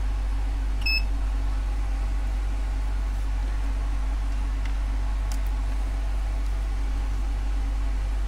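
Steady low electrical hum throughout, with one short, high electronic beep about a second in.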